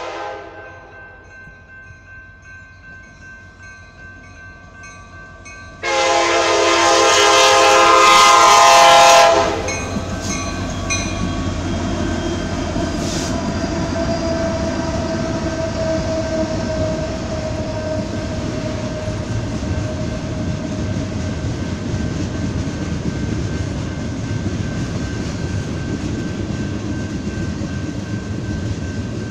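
Grade-crossing bell ringing steadily as a Union Pacific intermodal freight train approaches. About six seconds in, the lead diesel locomotive's horn sounds one long blast of about three seconds, the loudest part. After that the locomotives and double-stack container cars rumble past in a steady heavy roll.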